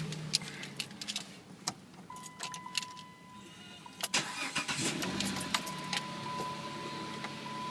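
2008 Dodge Charger engine cranking and starting about four seconds in, then idling steadily, now that a new starter relay has cured its no-crank fault. Before it there are a few clicks and a steady high beep.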